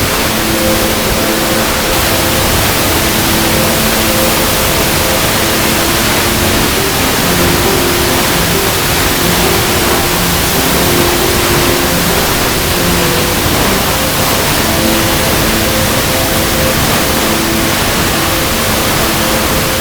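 Steady, loud rush of falling water from a waterfall, with soft held music notes faintly beneath it.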